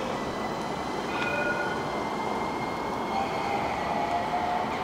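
Tram running on its rails: a steady rumble of wheels and running gear, with faint high whining tones over it.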